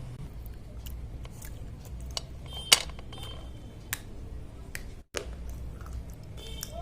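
Slate pencils being bitten and crunched between the teeth: a few sharp cracks, the loudest a little under three seconds in, over a low background rumble.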